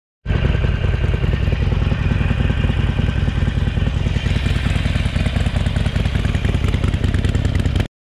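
Harley-Davidson Sportster Forty-Eight's 1200 cc V-twin running steadily through a Penzl V2 exhaust with its ball valve closed, the exhaust's quietest setting, with an even, pulsing beat.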